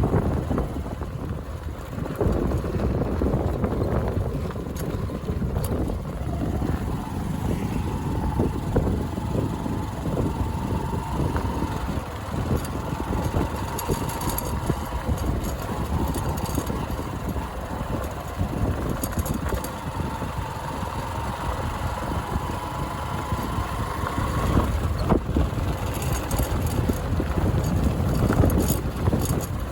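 Motorcycle engine running while the bike is ridden over a rough road, with wind rushing over the microphone. A faint engine note climbs slowly, then drops away late on.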